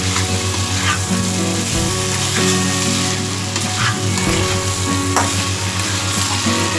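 Soya chunks and potatoes sizzling as they are dry-fried in a spiced mustard-oil masala in a kadai, stirred with a spatula, with a few sharper scrapes of the spatula against the pan. A steady low hum runs underneath.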